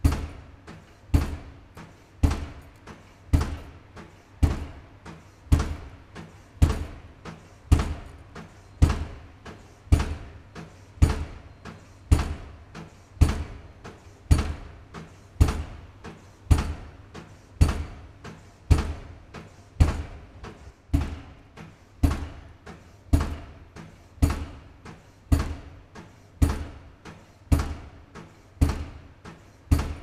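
Pile driver's hammer pounding a pile at a steady pace of about one heavy blow a second, each blow followed by a few lighter knocks.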